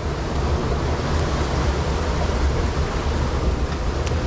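Steady rushing of a flooded river's fast water churning below, a constant noise with a low rumble.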